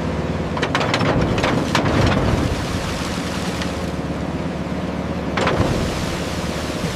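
Heavy construction machinery running steadily under wind and water noise, with several sharp knocks about a second in and another near the end.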